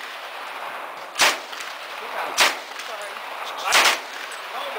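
Three single gunshots about a second and a quarter apart, each a sharp crack over a steady background of range noise.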